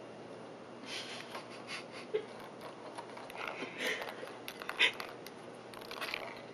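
Kittens batting a tiny woven basket across a hardwood floor: a run of short scratchy scrapes and light taps of paws and basket on the boards, starting about a second in, with the sharpest taps near two seconds and near five seconds.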